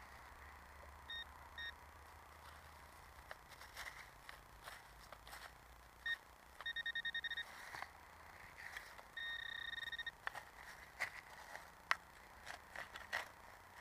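Handheld metal-detecting pinpointer giving short single-pitch electronic beeps, a few single ones and then two runs of rapid pulsed beeping, the sign that it is right on a shallow buried metal target. Between the beeps come the clicks and scrapes of digging in soil and dry leaves.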